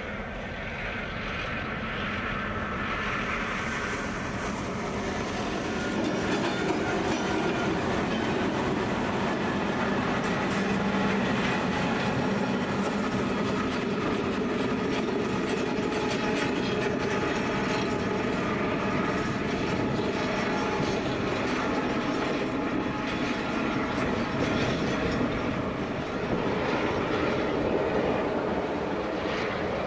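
Two diesel locomotives and a power van passing on the rails, engines running under the rumble of wheels on track. The sound builds over the first several seconds, then stays loud and steady as the train goes by.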